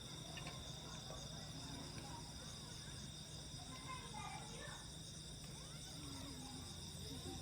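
An insect chorus: several steady, high-pitched trills running together without a break, faint under distant voices.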